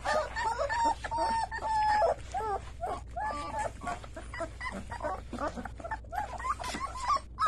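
A litter of young puppies whining and squeaking all the time, many short high calls overlapping, with a few longer drawn-out whines.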